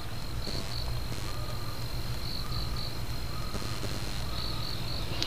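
Room background: a steady low hum with an insect chirping high and thin, in short pulsed bursts every second or two.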